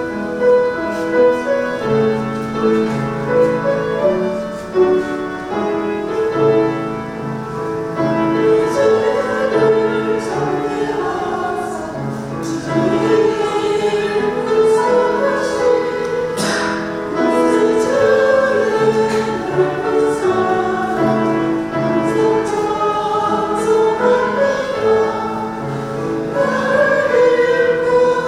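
A women's church choir singing a hymn, voices holding and moving between sustained notes.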